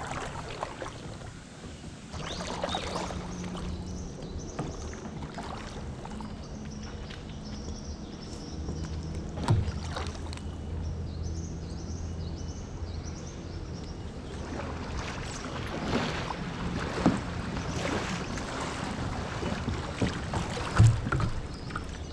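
Kayak paddle strokes dipping and splashing in slow creek water, with a few sharp knocks, the loudest near the end.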